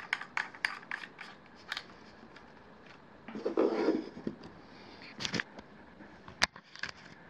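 Handling sounds as an external microphone is fitted onto an Andoer 4K camcorder's mount: a quick run of small clicks, about four or five a second, then a short rustling bump as the camera is set down on a cloth-covered table. A few single sharp clicks follow near the end.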